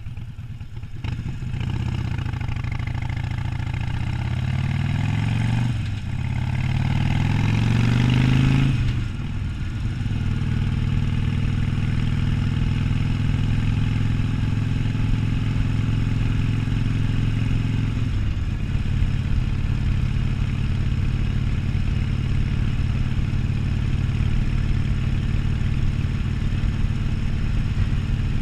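Harley-Davidson Sportster 1200's air-cooled V-twin accelerating on the road: the revs climb, drop with a gear change about six seconds in, and climb again. About nine seconds in the throttle eases into a steady cruise, with another small step down in revs about eighteen seconds in.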